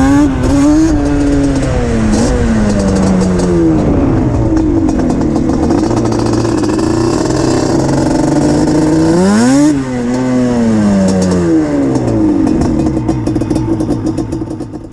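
A Yamaha Banshee's 350 cc twin-cylinder two-stroke engine, breathing through DMC Alien aftermarket expansion-chamber pipes, revving hard. Its pitch climbs and drops repeatedly, with a sharp climb about nine seconds in. It fades near the end.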